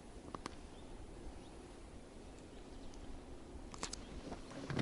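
A few light, sharp clicks over faint steady background noise.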